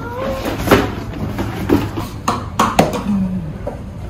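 Plastic cat litter box pulled from its cardboard box and handled: several sharp knocks and taps of the hard plastic parts against each other and the cardboard, a few of them close together past the middle.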